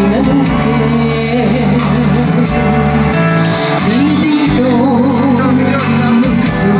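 A woman singing a song live into a handheld microphone, amplified through a PA over backing music with sustained bass notes and a steady beat.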